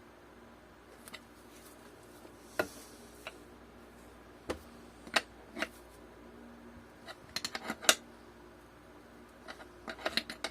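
Nuts, bolts and hand tools being handled: irregular light metallic clicks and clinks, with a quick run of them about seven seconds in and another near the end.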